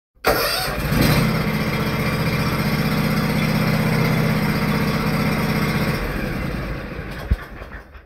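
An engine starting up and then running at a steady idle for about five seconds. Around six seconds in the steady note stops and the sound fades away, with a single sharp click near the end.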